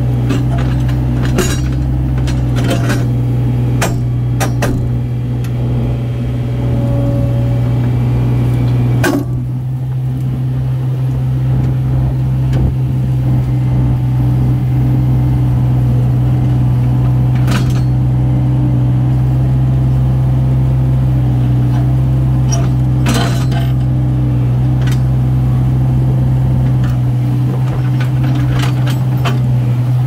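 Diesel engine of a compact earthmoving machine running steadily under work, with scattered sharp clanks and knocks every few seconds.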